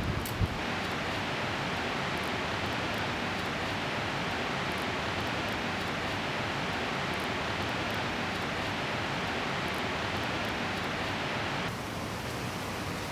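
Steady, even hiss of background noise with no distinct events; it drops a little in level near the end.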